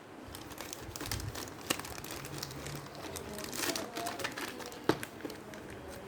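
Packaging crinkling and rustling as it is handled and opened, with irregular crackles and a few sharp clicks, the loudest about a second and a half in and near five seconds.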